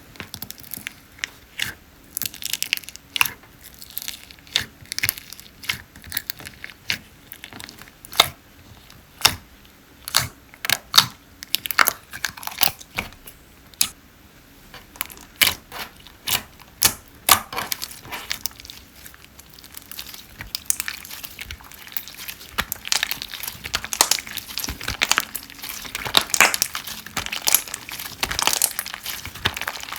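Slime being squeezed and pressed by hand, giving sharp sticky pops and crackles that start out spaced apart and become a dense, continuous crackling in the last third.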